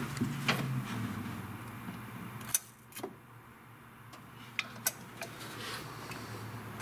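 Several sharp metallic clicks as the throttle linkage of a Holley four-barrel carburetor is worked by hand, over a low steady hum.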